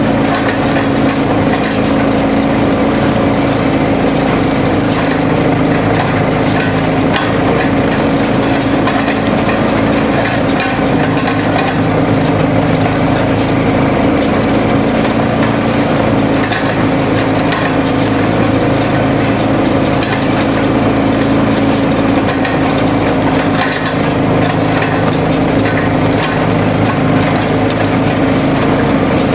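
A motor running steadily, an even hum with a few held tones that does not change for the whole stretch.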